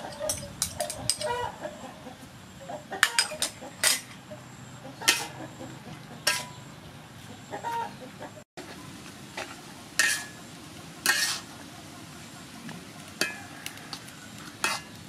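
Metal spatula scraping and knocking against an aluminium wok as beef and leafy greens are stir-fried, in sharp, irregular strikes. A chicken clucks in the background now and then, mostly in the first couple of seconds.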